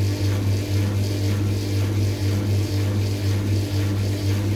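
Front-loading washing machine's drive motor running under power with a steady low hum.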